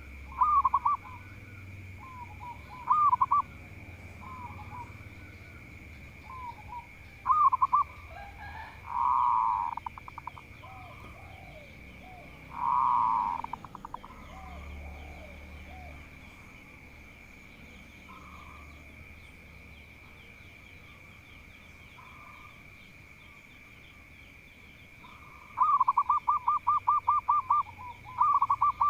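Zebra dove (perkutut) cooing in short phrases, ending with a long, fast run of rapidly repeated coo notes. A steady high-pitched tone runs underneath and breaks off briefly about halfway through.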